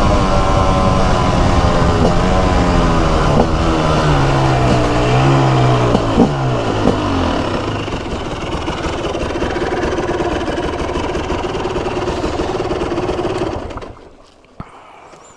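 Single-cylinder two-stroke engine of a TM SMR 300 supermoto slowing down, its pitch falling, with a couple of quick blips about six or seven seconds in. It then runs steadily at low revs before cutting out near the end.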